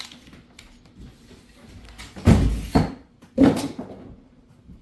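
A plastic clip on a cardboard shipping box is squeezed and pulled free. There are two loud knocks about a second apart, with quieter rustling around them.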